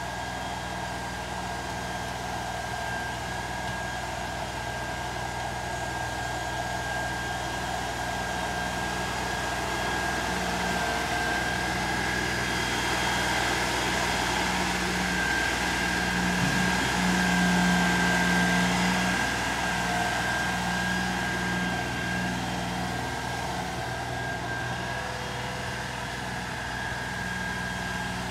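LS compact tractor's diesel engine running under load while it pushes and grades dirt with its front loader, with a thin steady whine over the engine. It grows louder toward the middle as the tractor comes close, then eases off as it moves away.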